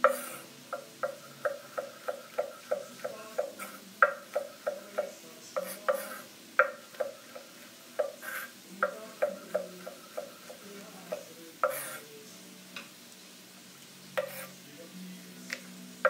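Chef's knife slicing mushrooms on a wooden cutting board: quick, even taps of the blade striking the board, about three a second, with a short pause about two-thirds of the way through.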